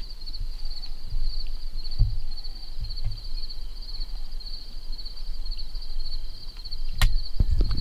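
Insects trilling steadily in a rapid, even pulse, over a low rumble with a few soft thumps and a sharp knock near the end.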